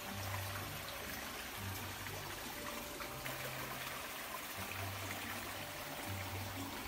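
Shallow forest stream trickling steadily over stones and logs.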